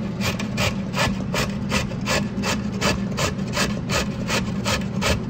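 A carrot rubbed up and down a stainless steel box grater in quick even strokes, about four a second, each a short rasp. A steady low hum runs underneath.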